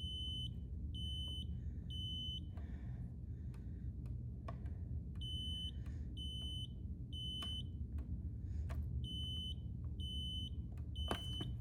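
Smoke alarm sounding in the temporal-three evacuation pattern: three groups of three high-pitched beeps, each about half a second long, with a pause after each group.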